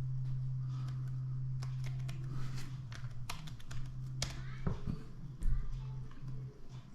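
Typing on a 2012 MacBook Pro's laptop keyboard: a run of separate key clicks, over a steady low hum, with one louder dull bump about five and a half seconds in.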